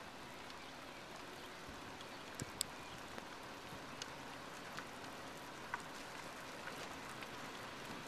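Quiet open-air background: a steady faint hiss with a few small, sharp ticks scattered through it, two close together about two and a half seconds in.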